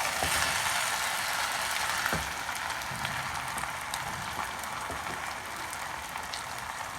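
Chicken yakhni pulao rice sizzling and crackling in the pot as it is stirred, with a few light clicks of the spoon against the pot; the cooking water has dried off.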